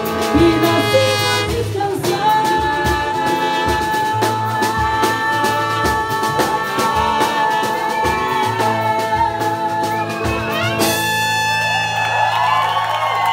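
Live marcha-rancho band playing: trumpet, trombone and saxophone holding long notes over a drum-kit beat, with cavaquinho and acoustic guitar. About eleven seconds in the drum beat stops and the band holds a bright final chord with sliding horn notes.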